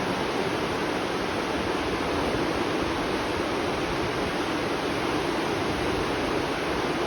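Steady rush of spring water flowing along a channel, even and unbroken.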